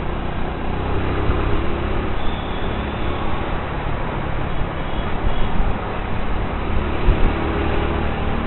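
Motorcycle engine running steadily on the move, with road and traffic noise around it.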